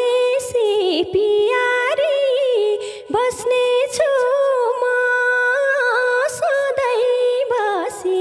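A woman singing a Nepali lok dohori folk melody into a microphone, with long held notes that waver and glide, and no drum beat under her voice.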